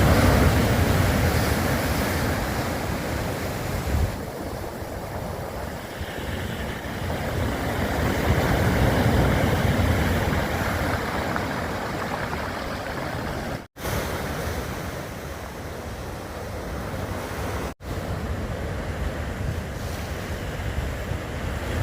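Steady rush of sea waves with wind buffeting the microphone. The sound drops out for an instant twice, in the second half.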